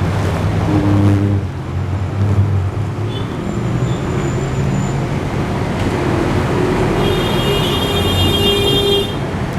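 Road traffic: motor vehicle engines running steadily, with a sustained high-pitched tone between about seven and nine seconds in.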